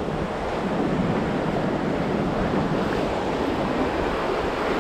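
Ocean surf breaking and washing through shallow foam on a sandy beach: a steady, even wash of water sound.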